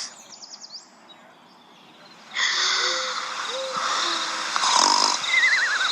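Outdoor wildlife ambience of animal calls, typical of a night-time nature soundtrack: short low hoots and warbling chirps over a steady hiss. It starts about two seconds in, after a near-quiet pause.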